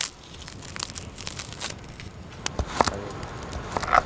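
A knife and fork carving through the crusty surface of a grilled flank steak on a wooden cutting board: crunching and scraping with many small clicks, and a couple of sharper metal clinks from the utensils near the end.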